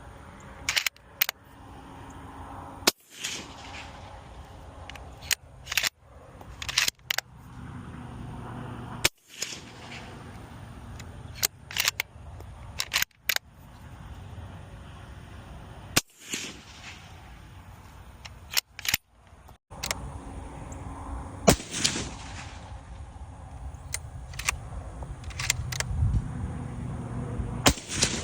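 Suppressed .308 bolt-action rifle fitted with a YHM Resonator K suppressor, fired several times with a few seconds between shots. Quieter clicks of the bolt being worked come between the shots.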